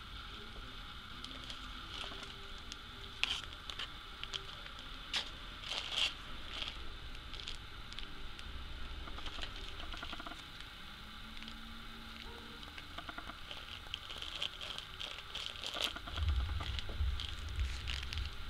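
Clear plastic bag crinkling and rustling as it is handled, with scattered crackles and small clicks; heavier handling bumps near the end as it is set into a plastic box.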